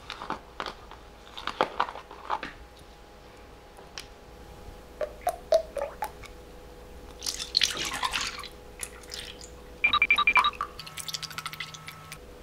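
Cream pouring from a carton into a plastic measuring cup and a stainless steel bowl, liquid splashing and dripping, with small knocks and clicks as the carton and cup are handled.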